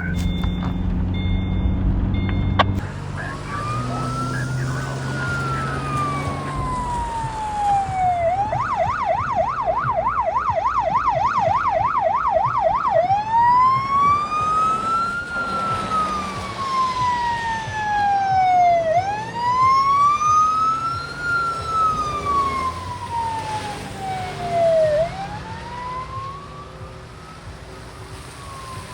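Fire apparatus electronic siren sounding a slow rising-and-falling wail, switching to a rapid yelp of about three sweeps a second for about five seconds, then back to the wail. A steady low hum comes before it for the first two to three seconds.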